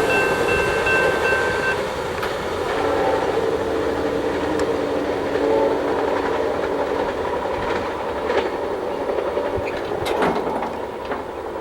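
Amtrak passenger cars rolling past on the rails, wheels clicking over the joints. A high steady wheel squeal stops about two seconds in, and a lower steady set of tones is held from about three to seven seconds in. The rolling noise eases toward the end as the tail of the train goes by.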